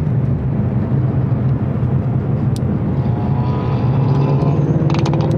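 A car's engine running steadily with a deep, even drone and road noise, with a faint whine partway through and a few light clicks near the end.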